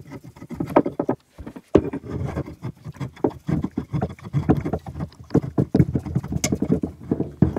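Turned oak table legs being twisted and pushed into the sockets of a metal table frame: a dense, irregular run of wooden knocks, clunks and scraping.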